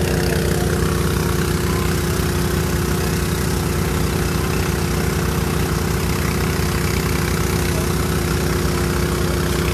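An emergency vehicle's engine idling steadily close by, a constant low hum with no change in speed.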